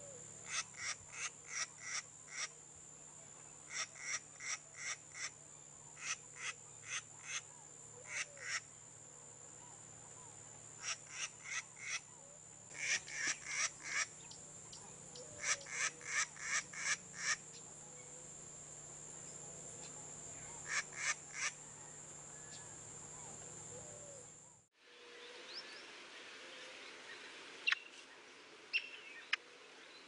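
Bicolored wren calling: short runs of four to six harsh, evenly spaced notes, about four a second, repeated every few seconds over a steady high whine and a low hum. Near the end the sound cuts to a different recording with a few scattered sharp chips.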